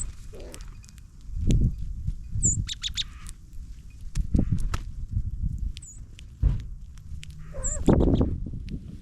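Small songbird giving short, high chirps, four of them about two to three seconds apart, over low thumps, rustles and clicks close to the microphone.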